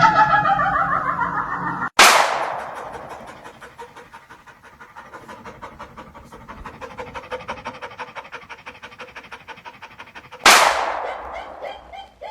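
Rapid rhythmic panting, several quick breaths a second, swelling and fading. It is broken twice by a sudden sharp bang, once about two seconds in and again near the end.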